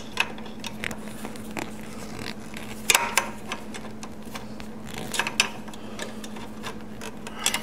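Scattered small metallic clicks and scrapes of a hand tool working a steel cotter pin, bending its legs over on a castle-nutted bolt.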